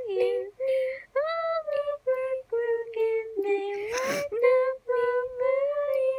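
A high voice singing a wordless tune in short held notes, with a breathy rush of noise about four seconds in.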